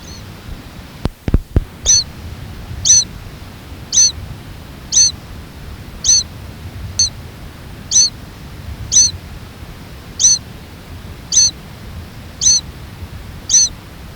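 Fledgling mourning sierra finch repeating the same short, high, screechy call about once a second. A few sharp knocks about a second in.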